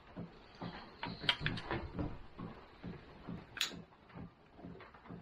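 Light clicks and taps of small parts being handled as the headlight motor's cover is opened, with a short hiss about three and a half seconds in, over a faint regular pulsing about twice a second.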